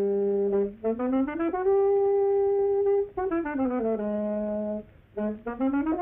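Solo wind instrument in a cartoon score. It plays a low held note, slides up about an octave to a long high note, and slides back down to the low note. After a brief break near the end it starts a quick run of rising notes.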